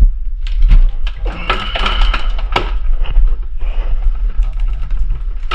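Rapid, irregular clicking and knocking of hand tools working on an old sewer pipe at its band coupling.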